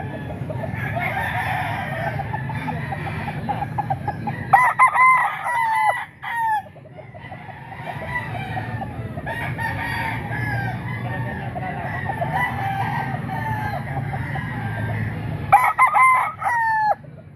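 Gamefowl roosters crowing: two loud, close crows, each about two seconds long, about a third of the way in and near the end. Fainter crowing and clucking from other roosters runs between them over a steady low murmur.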